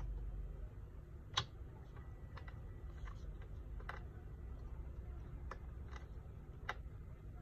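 About seven light, irregular clicks and taps as fingers touch and handle the plastic and metal parts inside an opened HP laptop, the sharpest about a second and a half in, over a low steady hum.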